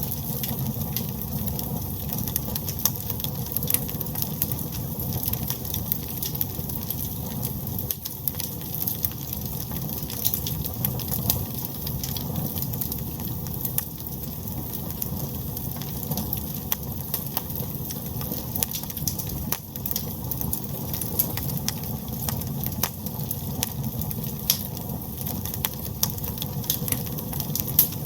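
Wood fire burning in a fireplace: a steady low rumble of the flames with irregular sharp crackles and pops from the logs.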